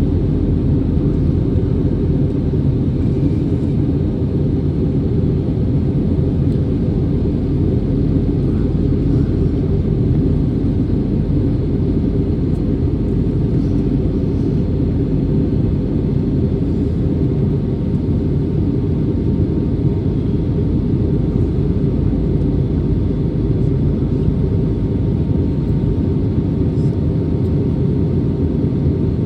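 Airbus A320neo airliner in flight: a steady, unchanging low rumble of jet engines and airflow, with a faint steady hum above it.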